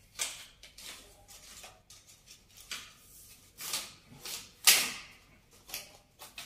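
Horizontal window blind being handled at its headrail, its slats giving a string of short, uneven rattles, the loudest about two-thirds of the way through.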